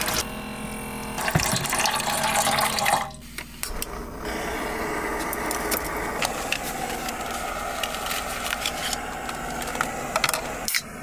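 A small electric jug pump whirring and pouring water for about the first three seconds. Then, after a short pause, a gas camping stove burner (Jetboil) hisses steadily. A can snaps open near the end.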